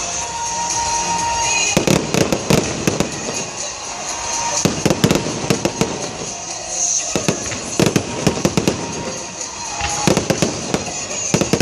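Fireworks display: rapid volleys of sharp cracks and bangs from aerial shells and ground-fired comets. There are four bursts, each about a second long, a couple of seconds apart.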